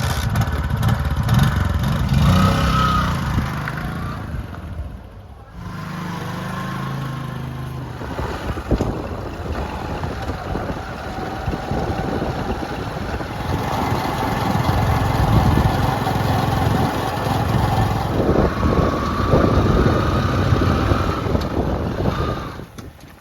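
Heavy diesel machinery engine working under changing load, its note dropping about five seconds in, building again in the second half and fading out near the end.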